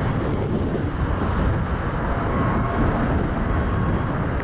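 Boeing 777-300ER's GE90-115B turbofan engines at takeoff power as it begins its roll, heard from across the airfield as a steady, low jet rumble.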